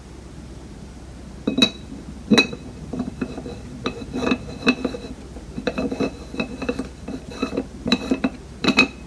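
Stainless-steel whipping siphon (espuma bottle) having its head fitted and screwed down tight: a run of metallic clinks and taps with a light ringing, starting about a second and a half in. The sharpest knocks come near the start and near the end.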